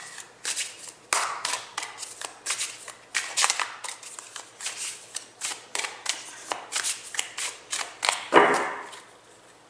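A tarot deck being shuffled by hand: a run of quick card swishes and soft slaps, about two or three a second, with one louder, longer swish near the end.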